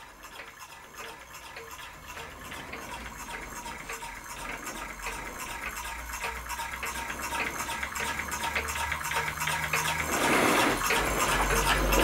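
Scratch-built solenoid beam engine running: a fast, even ticking from its solenoid and contact breaker, growing louder toward the end.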